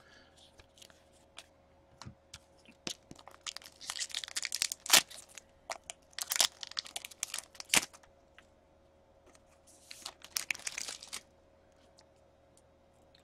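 Foil wrapper of a 2015-16 SP Authentic hockey card pack being torn open and crinkled by hand, in three bursts of crackling with a couple of sharp snaps. Scattered light clicks come from the cards being handled.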